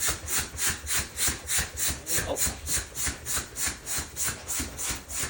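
Bicycle pump being worked fast to inflate a bicycle tire, a quick even rhythm of about four hissing air strokes a second.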